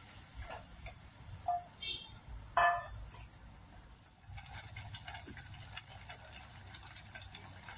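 A steel ladle stirring and scraping thick tomato-onion masala in an aluminium pan, with a few knocks against the pan. About four seconds in the stirring stops and the masala simmers with soft bubbling and fine crackling.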